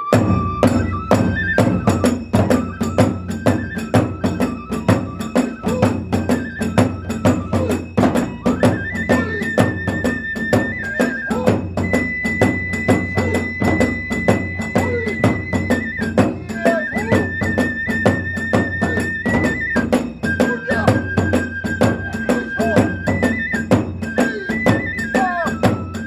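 Kagura hayashi music: a bamboo flute holds long notes that step between a few pitches over a fast, steady beat of taiko drum strokes and clashing small hand cymbals.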